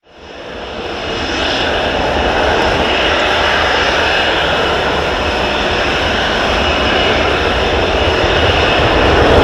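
Panavia Tornado's twin RB199 jet engines running loud and steady, with a high whine over the roar. The sound grows a little louder near the end.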